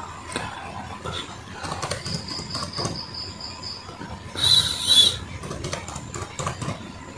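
Lenovo B490 laptop keyboard keys clicking irregularly as a password is typed. About two seconds in there is a quick run of high chirps, and around the middle a louder high-pitched screech lasting under a second.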